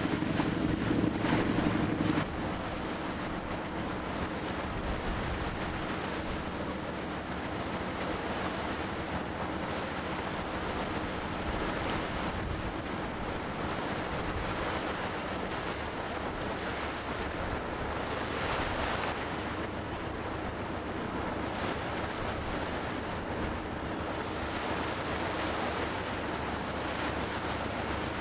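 Wind noise on the microphone and waves on open sea, with the low steady hum of a boat engine underneath. The hum is louder for the first two seconds, then drops to a quieter level that holds.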